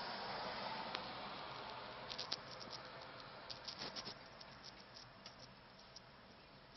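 A scattered run of light clicks and taps from a caged songbird moving about its cage, over a steady hiss that fades away.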